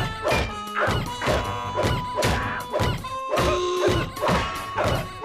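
Cartoon slapstick sound effects: a rapid run of whacks and crashes, about two a second, over music with a long held note.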